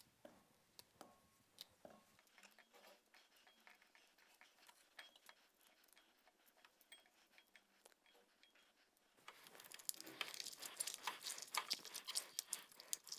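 White grapes being crushed by hand in a glass bowl: a wet, crackling squelch of bursting berries that starts about nine seconds in. Before that only faint scattered taps.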